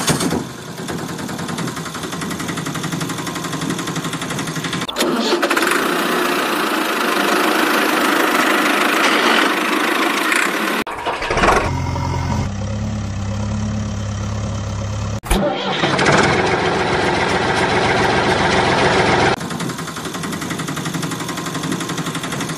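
Dubbed-in motor-vehicle engine sound effects, running and idling, switching abruptly from one engine recording to another several times: about five seconds in, near eleven seconds, near fifteen seconds and near nineteen seconds.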